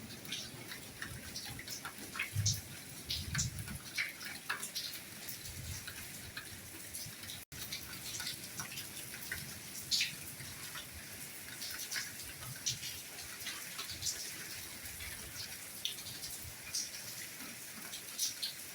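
Soft rainfall: a steady patter with many separate raindrops ticking close by, some low rumbling in the first few seconds, and a split-second gap about seven and a half seconds in.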